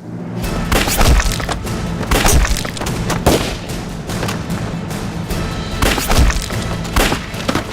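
Dramatic film score with low held notes, struck through by a series of heavy thuds and crashes at irregular intervals.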